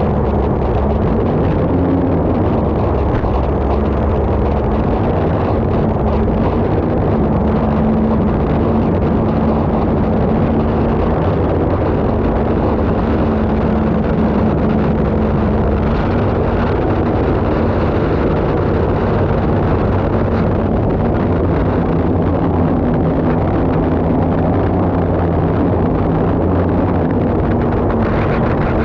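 Turbine engine of an unlimited hydroplane running hard at racing speed, heard onboard with wind and water rushing past. It is a loud, steady roar with a constant droning tone that does not let up.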